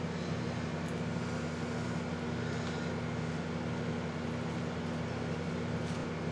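Steady low mechanical hum with several steady pitched tones over a faint hiss, from the room's air conditioning.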